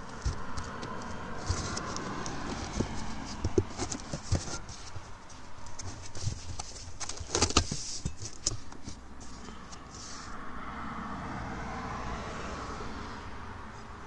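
Hands rummaging in a cardboard box of foam inserts and plastic-wrapped parts: plastic crinkling, foam and cardboard rubbing, and irregular light clicks and knocks as parts are lifted out, busiest about seven and a half seconds in.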